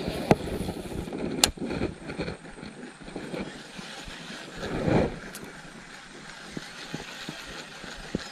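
Baitcasting reel being cast and wound in: two sharp clicks from the reel in the first second and a half, a swish about five seconds in, and the reel's steady winding noise as the lure is brought back.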